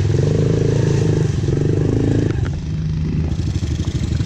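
Dirt bike engine revving up and down as the bike rides through a muddy water puddle, with water splashing.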